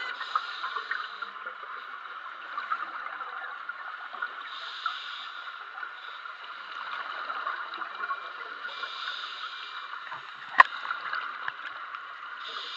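Underwater sound of scuba divers breathing through regulators: a steady crackling hiss, with a burst of bubbling exhaust air about every four seconds as a diver breathes out. A single sharp knock about ten and a half seconds in.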